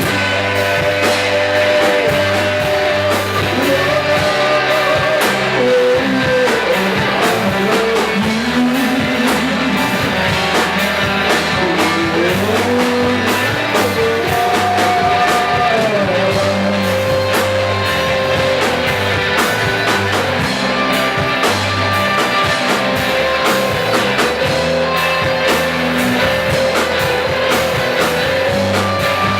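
Rock music playing steadily: a sung melody over guitar and drums.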